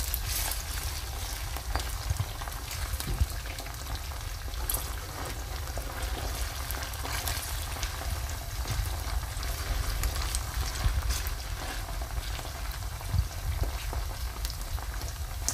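Sliced onions and tomato purée frying in oil in a stainless steel pan: a steady sizzle with scattered crackles, stirred now and then with a silicone spatula, over a low rumble.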